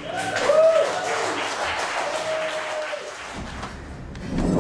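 Audience applauding and cheering at the end of a rock band's set, with a few shouts or whistles over the clapping; the applause dies away after about three seconds.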